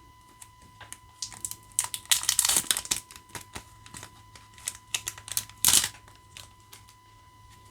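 A Magic: The Gathering booster pack's plastic wrapper crinkling and being torn open by hand. It comes in irregular bursts of crackling, the loudest a sharp one near six seconds in.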